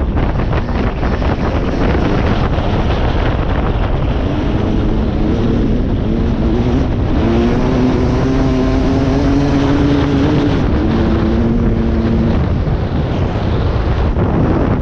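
Dirt bike engine running on the move under heavy wind buffeting on the microphone. The engine's pitch shifts up and down with the throttle, and it stands out most through the middle.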